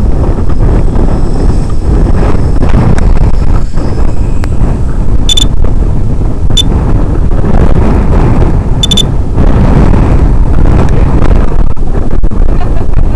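Wind buffeting a microphone: a loud, steady low rumble, with a few short high beeps in the middle.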